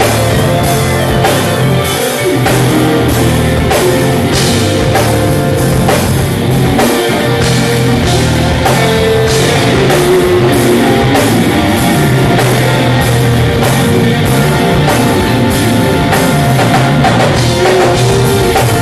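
Live band playing loudly over a PA: a drum kit keeping a steady beat under bass and keyboard.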